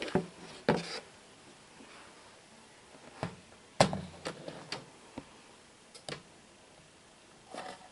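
Scattered clicks and knocks of a clear plastic reptile tub and its hide box being handled, irregular and short, the loudest a sharp knock about four seconds in.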